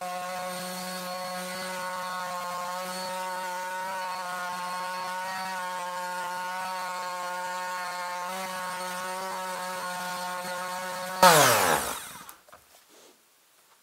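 Bosch PSM 80 A multi sander running steadily with its sanding pad on a wooden cutting board, a steady motor hum. Near the end it gets louder for a moment, then it is switched off and its pitch falls as it winds down.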